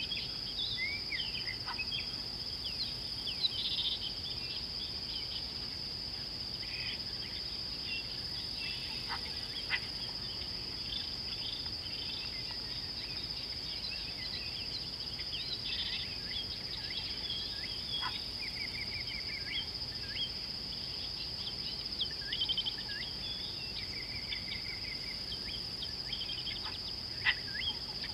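A steady high-pitched insect drone, with many short bird chirps and whistles over it. A few sharp clicks come through, about two seconds in, near ten seconds, near eighteen and near the end.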